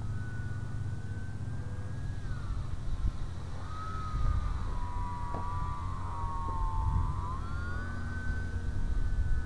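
The 1530kv brushless electric motor and propeller of an RC Cessna whining in flight. Its pitch sinks from about two seconds in and climbs back near seven seconds, over a steady low rumble.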